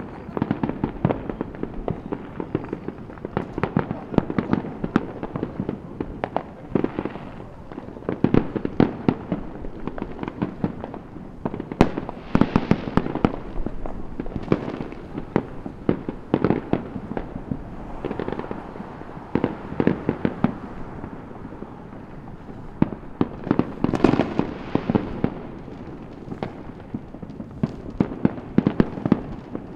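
Many fireworks going off at once: a dense, irregular run of bangs and pops with crackling, heavier in a few stretches.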